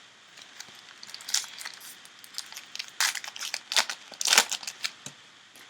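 Foil wrapper of a trading-card pack being torn open and crinkled by hand, in several short bursts of crackling, the loudest about three to four and a half seconds in.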